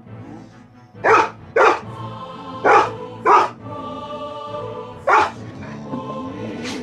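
A large dog barking five times, in two quick pairs and then one more: demand barks for treats hidden in a pocket. Background music plays underneath.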